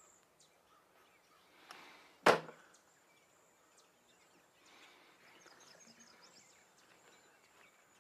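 A short whoosh ending in one sharp hit about two seconds in, then faint bird chirps.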